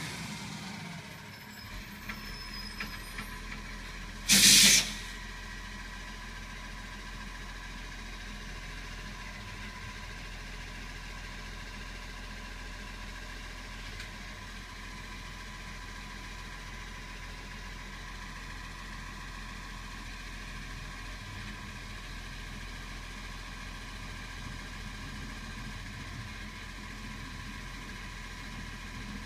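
Garbage truck's air brakes releasing one short, loud hiss about four seconds in as it stops, then the truck's diesel engine idling steadily.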